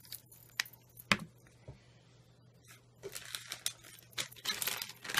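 Small taps and clicks of craft tools being set down on a craft mat, the sharpest a little after a second in, then a couple of seconds of rustling and crinkling handling noise.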